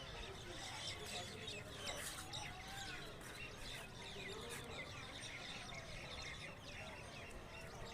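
A flock of small birds chirping, with many short, high chirps overlapping throughout and a few lower, curving calls among them.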